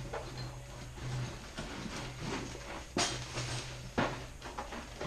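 A few light knocks and clicks of a BMX bike and tools being handled, the two clearest about three and four seconds in, over a steady low hum.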